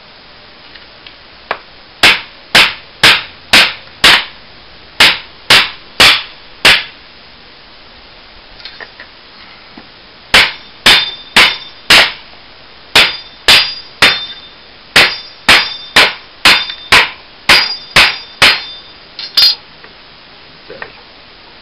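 Machete blade chopping into wood across the grain, in two runs of sharp blows about two a second, with a pause of about three seconds between them. Many of the later blows carry a brief metallic ring from the blade.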